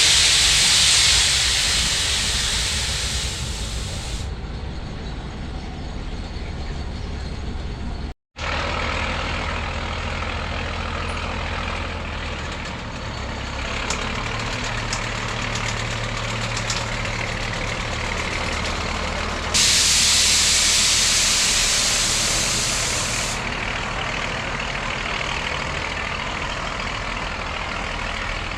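Heritage railway train with a steady low engine rumble, and two loud hisses of released pressure, each about four seconds long: one at the start and one about twenty seconds in. The sound cuts out completely for a moment about eight seconds in.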